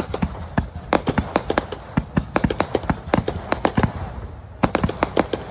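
Aerial fireworks display going off: a rapid, irregular string of sharp bangs and pops, several a second, as shells and comets launch and burst.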